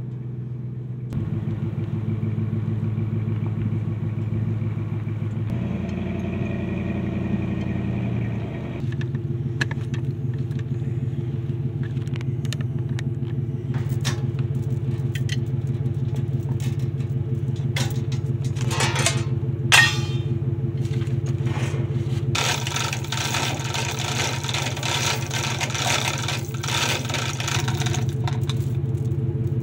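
An engine running steadily, its speed stepping up and down a few times in the first several seconds. A hiss joins it for the last several seconds, with a single sharp click shortly before.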